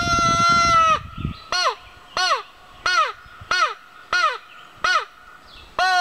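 Hand-blown crow call imitating crow caws: one long drawn caw, then six short caws in a row, each dropping in pitch at its end, and another long caw starting near the end.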